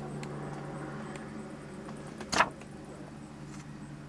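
A steady low hum with a single sharp click about two and a half seconds in.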